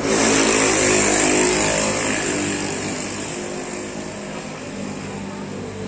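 A motorbike engine running close by. It starts loud and slowly fades as its pitch drops.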